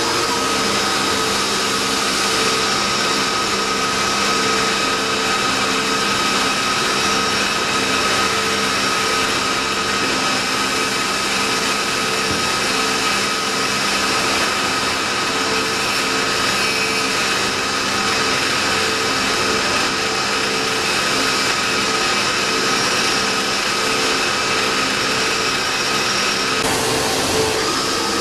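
Nakamura-Tome NTJ-100 CNC lathe cutting a part: a steady machine whine over the hiss of flooding coolant, with no pauses.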